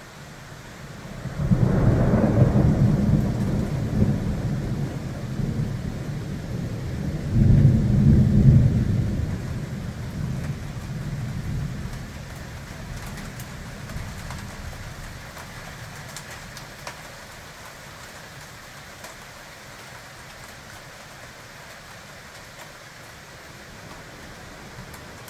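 Thunder rumbling, starting suddenly about a second and a half in, swelling again around eight seconds, then rolling away over several seconds, over a steady hiss of rain.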